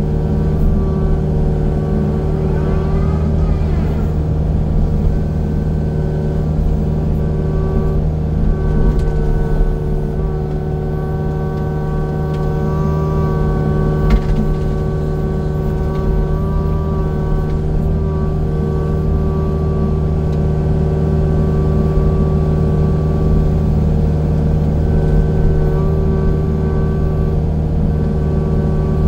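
Engine of a land-clearing machine running steadily at a constant speed, with a single sharp knock about fourteen seconds in.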